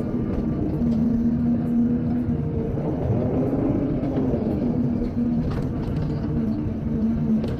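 Excavator engine running steadily, with a low hum that comes and goes several times.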